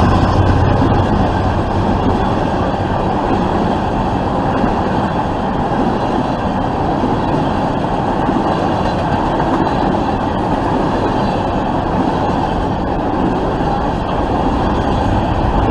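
Freight train cars rolling past: a steady rumble and rattle of steel wheels on rail as a string of empty intermodal well cars goes by.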